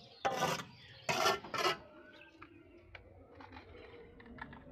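Steel bricklaying trowel scraping mortar against hollow ceramic bricks: three short rasping strokes in the first two seconds, then a few light taps and clicks.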